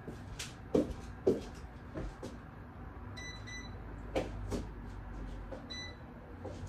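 Scattered knocks and clicks of things being moved about, with short high electronic beeps: two quick beeps about three seconds in and a single beep near the end.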